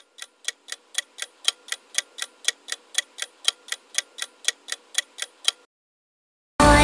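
Countdown-timer clock ticking, a sound effect of about four sharp ticks a second that stops about five and a half seconds in. A pop song starts loudly right at the end.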